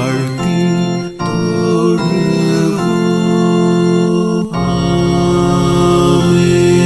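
Organ playing sustained hymn chords, changing chord a few times and then holding one long chord over the closing Amen.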